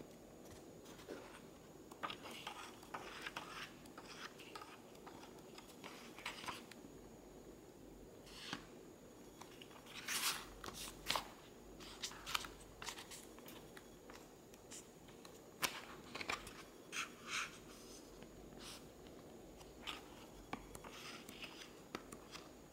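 A book's paper pages being turned and handled: a string of soft, irregular paper rustles and flicks, busiest about halfway through.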